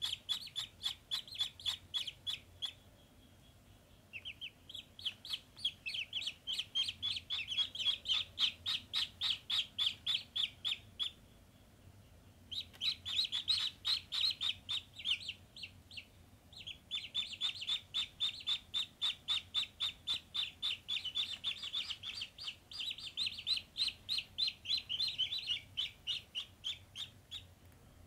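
Domestic ducklings peeping: rapid high peeps, several a second, in long runs broken by a few short pauses.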